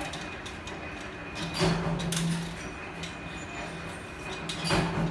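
Metal scraping and rattling of a coil of steel strip turning on a manual decoiler reel as it is loaded by hand. It swells twice, about a second and a half in and again near the end, over a steady thin high whine.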